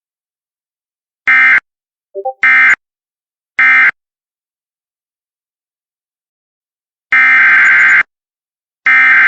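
Emergency Alert System SAME data bursts, the harsh warbling digital tones of the alert code: three short bursts about a second apart, the end-of-message signal closing the previous alert, with a brief lower chirp between the first two. About three seconds later come two longer bursts of the same tones, the header that opens the next alert.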